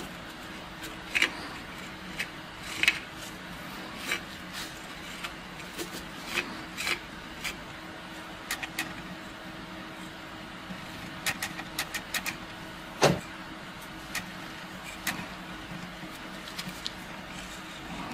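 Plastic spreader scraping and smearing thick black paste over pitted steel, heard as irregular soft clicks and ticks with a louder knock about 13 seconds in, over a steady low hum.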